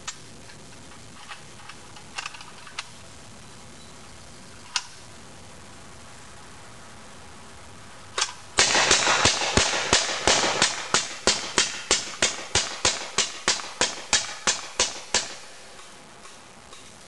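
Hand-cranked Gatling gun firing a long rapid burst of shots, about four a second, for roughly seven seconds, after a single opening shot. A few light clicks and knocks come before it as the gun is readied.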